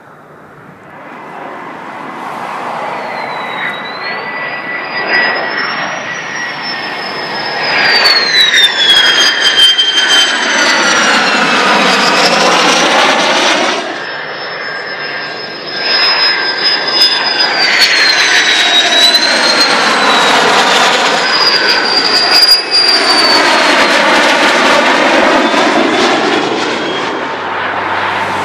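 Military jets flying low past: a loud roar with a high engine whine that slides down in pitch as each one goes by. It happens twice, with a sudden drop in level about halfway through.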